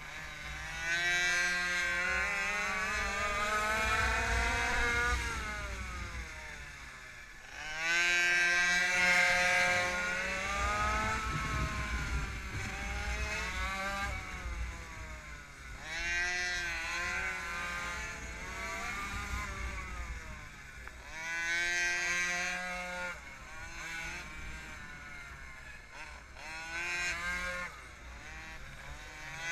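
Small two-stroke minimoto engine ridden hard around a track. Its high-pitched note climbs steeply on each straight and drops away into the corners, again and again, over wind rumble on the helmet microphone.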